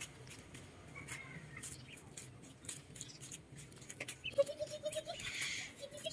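Rubber flip-flops slapping and scuffing on a concrete driveway at a slow walking pace, with a duckling peeping faintly as it runs behind. A short, fast, stuttering call sounds twice near the end.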